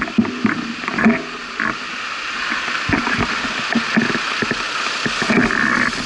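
Road traffic passing through a junction, heard from a stopped bicycle: vehicles going by, with a few short knocks in the first second and the traffic noise growing louder through the second half.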